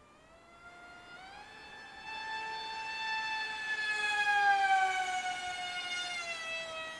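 Electric motor and propeller of a Z84 RC flying wing whining under power: the pitch steps up about a second in as the throttle opens, gets louder, then slides slowly down over the last few seconds.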